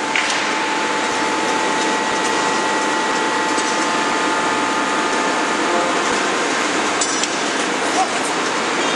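Steady industrial machinery noise, an even hiss with a faint high hum, and no forging-hammer blows. A few light metallic clanks come shortly after the start, about seven seconds in and about eight seconds in.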